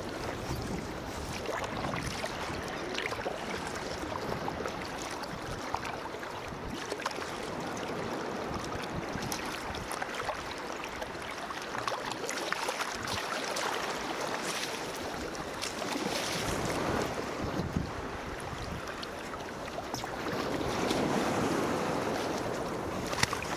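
Sea water lapping and splashing against a sea kayak's hull as it is paddled toward a beach. About twenty seconds in, the sound swells as small waves break around the bow in the shallows.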